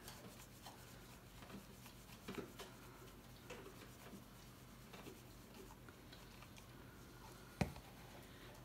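Faint patter of dry barbecue rub shaken from a spice shaker onto a rack of pork ribs, with one sharp click near the end.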